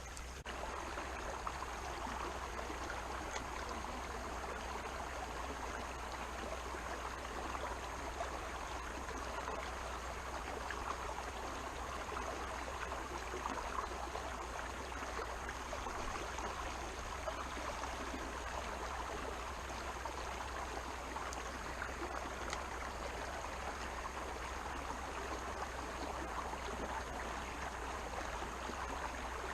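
Creek water flowing: a steady, even rush of running water with no breaks.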